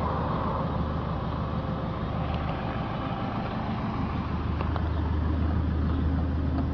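Car engine running steadily with a low rumble, which grows a little stronger about two-thirds of the way through.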